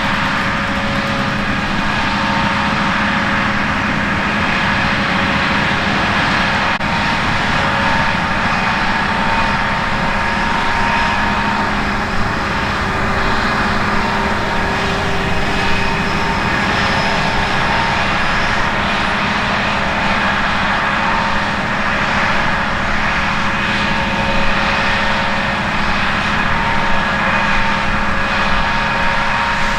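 Heavy farm harvest machinery running steadily: a constant engine drone with several steady whining tones and no pauses.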